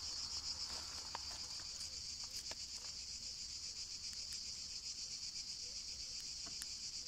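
Steady high-pitched chirring chorus of insects, rapid and unbroken, with a few faint clicks.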